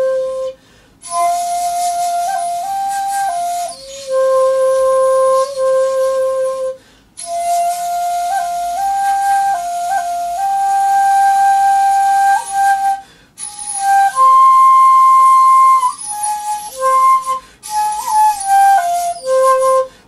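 Solo shakuhachi (bamboo end-blown flute) playing a honkyoku melody. The notes are long and held, with a breathy tone and small slides and grace notes between pitches. The phrases are broken by short pauses for breath.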